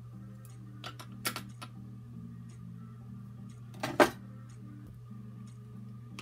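Makeup tools and products being handled and put down on a hard surface: a few light clicks about a second in, then a louder knock about four seconds in. A steady low hum runs underneath.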